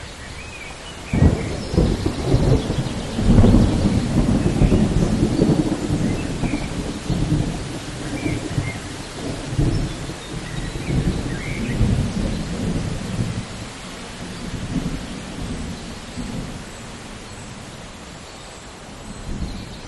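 Thunderstorm: a peal of thunder breaks in suddenly about a second in, loudest over the next few seconds, then rumbles on and slowly fades over steady falling rain.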